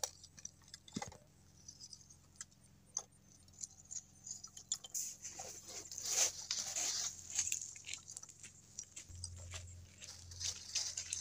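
Scattered light clicks and crunches as lumps of charcoal are set onto a small kindled fire in a metal box grill, with a stretch of rustling from a plastic bag about five seconds in.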